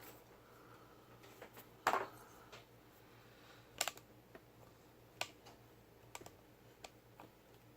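Small, scattered clicks and taps of lock pins and small metal parts being handled and set down while a padlock is taken apart. The sharpest click comes about two seconds in, a quick double click near the middle, and a few lighter ticks after.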